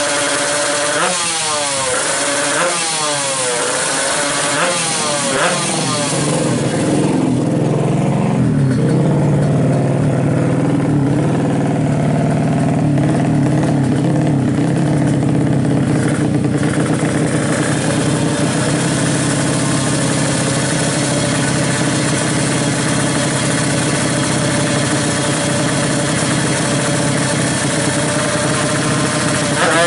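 Newly built 350cc Kawasaki Ninja race engine being tuned: revved in about four quick blips, then held at a steady high rev for the rest of the time.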